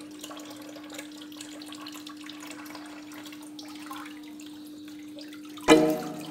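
Kitchen tap running, water splashing over a raw whole chicken being rinsed by hand into a steel sink, with a faint steady hum under it. Music comes in loudly near the end.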